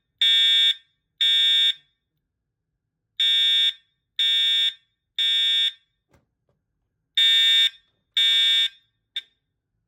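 Edwards (EST) Integrity fire alarm horn sounding loud half-second electronic blasts in the temporal-3 evacuation pattern: three blasts a second apart, a pause, then three again. The last blast is cut short about nine seconds in.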